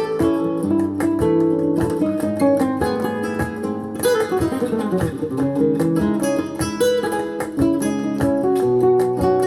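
Acoustic guitar music, plucked and strummed notes, played back through a Grundig Super HiFi Box 2500 loudspeaker during a listening test.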